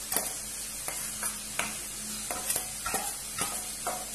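Chopped tomato and spice masala sizzling in hot oil in a steel kadai: a steady frying hiss with irregular sharp clicks about every half second.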